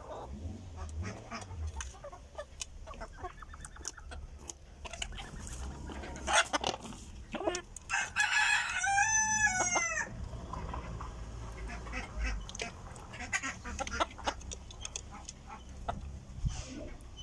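A flock of Fayoumi and local-breed chickens clucking, with a rooster crowing once about halfway through, a single crow of about two seconds that is the loudest sound.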